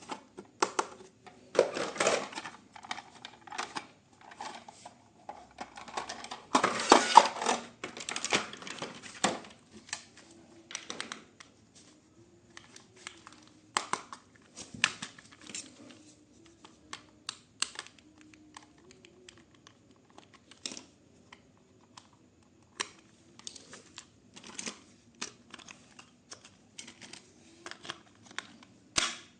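Hands handling a plastic toy and its packaging: irregular clicks and taps, with a short stretch of crinkling about seven seconds in.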